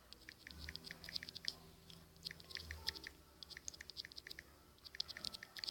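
Faint, quick clicks in irregular runs, several a second.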